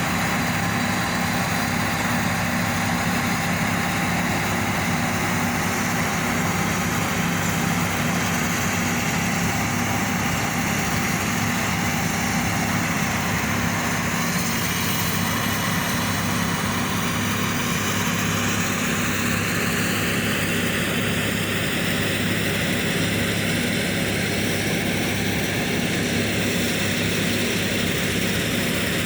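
Excavator's diesel engine running steadily, with a constant low hum and no knocks or impacts standing out.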